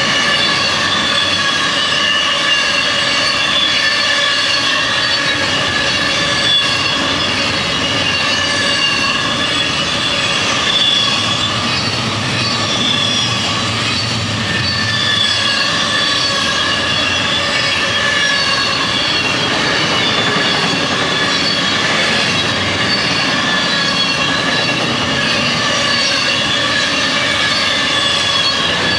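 Double-stack intermodal freight train's well cars rolling past with a steady rumble of steel wheels on rail, and a high-pitched wheel squeal of several steady tones over it.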